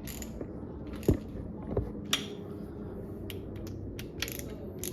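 Metal hand tools clicking and knocking on an engine, with irregular ratchet-like clicks, likely a socket wrench working spark plugs into the cylinder head. The sharpest knock comes about a second in, and a run of lighter clicks follows near the end.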